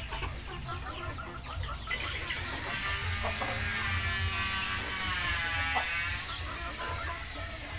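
Chickens clucking and chirping, with a rooster crowing once in the middle, a single call about three seconds long that rises and then falls, over a steady low hum.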